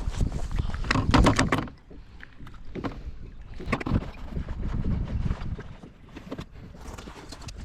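Handling noises on a fishing kayak on the water: bursts of knocking, clattering and splashing about a second in, around four seconds and near the end, over a steady low rumble.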